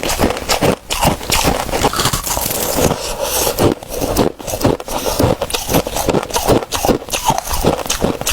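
Crushed ice being bitten and chewed: a loud, dense run of crackling crunches, several a second without a break.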